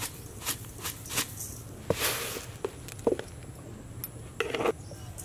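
Granulated sugar being poured from a container onto grated coconut in a metal pan: short granular hisses and light taps, with the longest hiss about two seconds in and another near the end.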